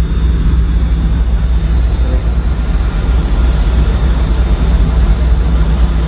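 Steady low rumble of the passenger ship KM Lawit under way at sea, with a faint high steady whine over it.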